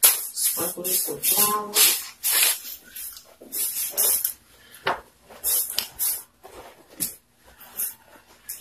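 Short irregular scraping strokes of a pizza cutter cutting pasta dough on a flour-dusted tabletop, with hands handling the cut noodles. A brief voice-like sound comes about a second and a half in.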